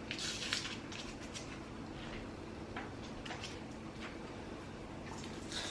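Faint rustling and scattered light clicks of snack packaging being handled and opened.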